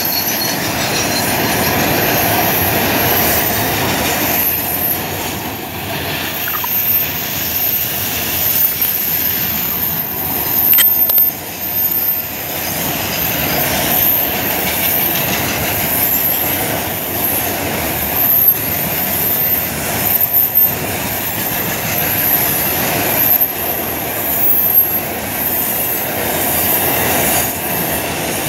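Loaded log-carrying freight wagons rolling past on a curved track: a steady rumble of steel wheels on the rails, with a high-pitched wheel squeal on the curve coming and going, and knocks at the rail joints every second or two.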